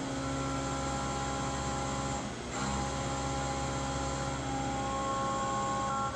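SYIL X7 CNC mill running a cut: a steady machine whine of several held tones over a low hum. The sound dips briefly about two and a half seconds in, then picks up again.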